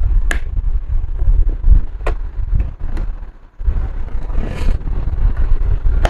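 Steady low rumble with a few sharp clicks and a short scrape about four and a half seconds in: plastic laptop parts being handled on a workbench.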